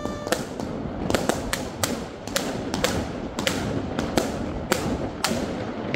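New Year's fireworks going off: rockets and aerial shells giving many sharp, irregular bangs and cracks over a steady background of further explosions. A brief whistle sounds right at the start.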